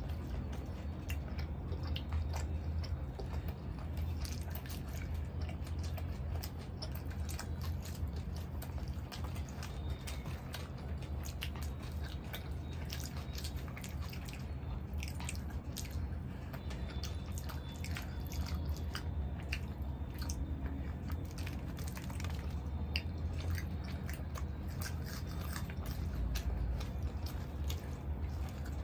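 Close-miked eating sounds: chewing, wet mouth smacks and soft clicks from two people eating naan dipped in masala chaap gravy by hand, over a steady low hum.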